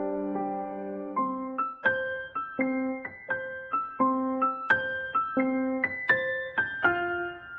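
Background piano music: a held chord fades away, then a slow, gentle melody of single struck notes.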